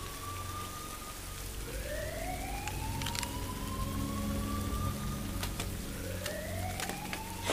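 A siren wailing in slow rising sweeps, each climbing in pitch over about three seconds before starting again low. Under it runs a steady rain-like hiss and a low hum, with a few faint clicks.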